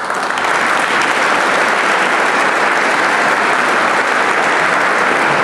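Audience of dinner guests applauding: dense, steady clapping that breaks out suddenly and holds at full strength.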